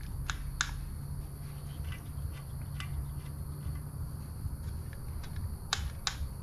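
A few light, sharp clicks of small parts being handled on a workbench, two quick pairs about a third of a second in and near the end with fainter ticks between, over a steady low hum.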